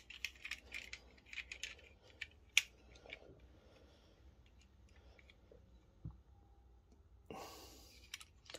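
Faint clicks and taps of hands handling a small toy car, with one sharper click about two and a half seconds in and a brief rustle near the end.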